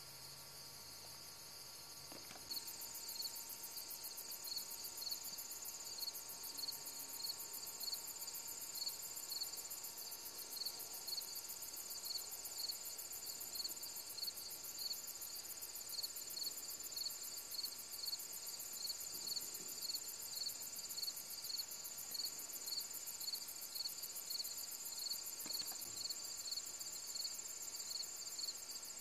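Evening chorus of insects: a steady high-pitched pulsing trill, with regular short chirps a little under two a second over it. It gets louder about two seconds in.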